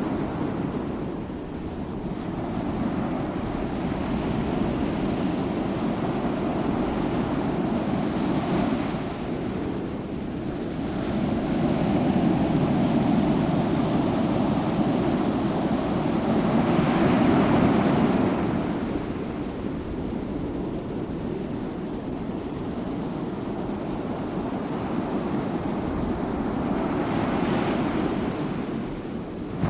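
Sea waves breaking and washing in: a continuous surf that swells as each wave comes in, with the biggest surge about two-thirds of the way through.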